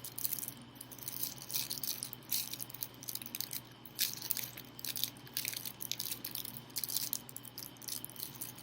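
Irregular rustling, crackling and light clicking from switch plate covers and their paper being handled, over a low steady hum.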